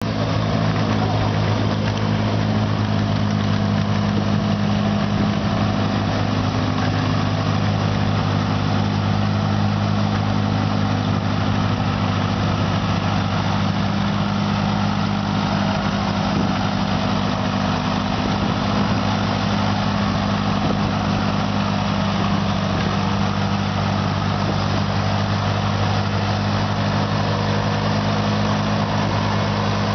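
Antique farm tractor engine running steadily under load as it pulls a weight-transfer sled, a constant low engine note that holds without revving up or down.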